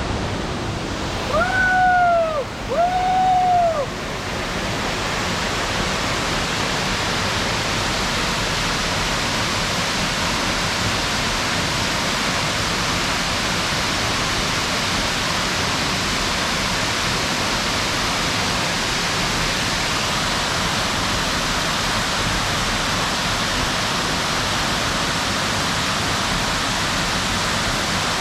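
Waterfall rushing: a steady, dense noise of falling water that swells about four seconds in and then holds level. About two seconds in, two short pitched calls, each rising then falling in pitch, sound over it.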